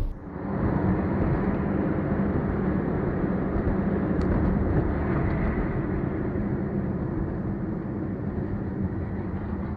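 Steady rumble of a moving car's engine and road noise, heard from inside the cabin through a dashcam's microphone.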